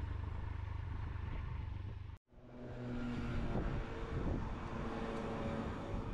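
Triumph Tiger 1200 three-cylinder engine running at a steady low rumble with wind noise while riding. About two seconds in it cuts off abruptly, and steady outdoor traffic ambience follows, with a vehicle going by.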